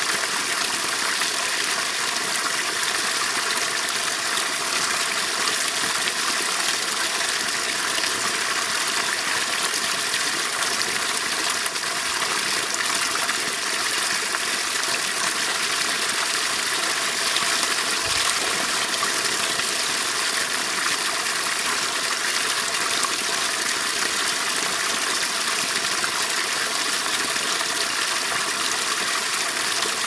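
Spring water falling in a thin stream into a small icy pool, splashing with a steady, even hiss.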